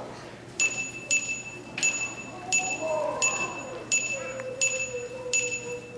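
A bright chime tone dinging at a steady pace, eight dings about 0.7 seconds apart starting half a second in, each struck sharply and ringing briefly, with faint voices murmuring underneath.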